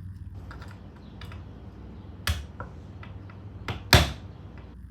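A few sharp metallic clicks and knocks as a stubborn takedown pin is worked out of an AR-15's receiver, the loudest knock near the end.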